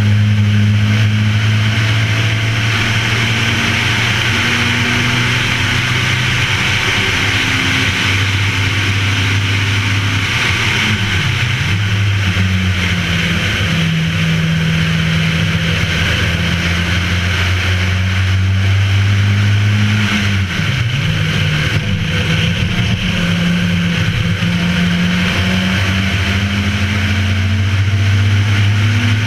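Race car's engine running hard at speed on a circuit, heard from a camera mounted on the outside of the car. The engine note holds steady and twice dips and picks up again, over a constant rush of wind and road noise.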